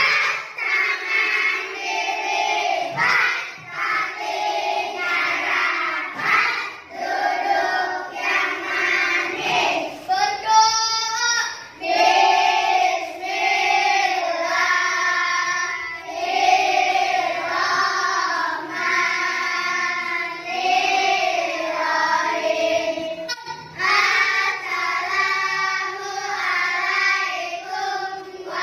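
A class of young children singing a song together in unison, with held notes and short breaths between phrases.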